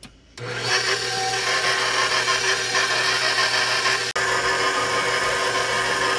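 Electric mixer running steadily, beating the wet cake-batter ingredients. It starts about half a second in and dips for a moment about four seconds in.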